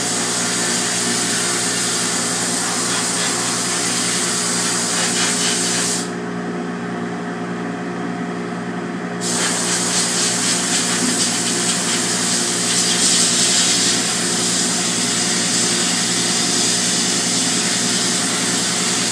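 Blast cabinet nozzle firing 60-grit aluminum oxide at about 80 PSI: a loud, steady hiss of air and abrasive stripping the solder mask off a circuit board. The hiss cuts off for about three seconds around six seconds in, then resumes, with a steady machine hum underneath.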